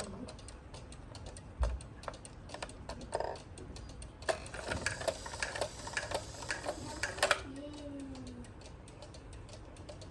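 Regula cuckoo clock movement ticking with a run of sharp, regular clicks. About four seconds in, the clicks grow louder and more crowded for a few seconds before settling back.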